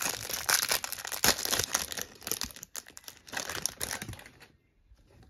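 Clear plastic wrapper of a Select basketball card pack crinkling as it is pulled off the stack of cards, busiest in the first two seconds and dying away about four seconds in.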